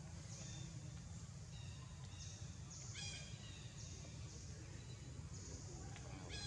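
Outdoor ambience: a steady low rumble, short bursts of high hiss about once a second, and two brief high-pitched animal calls, one about three seconds in and one near the end.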